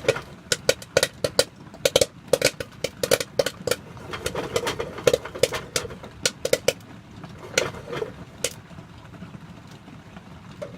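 Microwave-popcorn kernels popping in a covered pot on a stovetop: a rapid crackle of sharp pops that thins out to a few scattered pops after about seven seconds, as the batch nears done.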